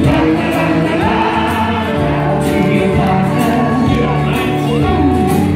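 Live children's band performing a song: group singing over a steady beat.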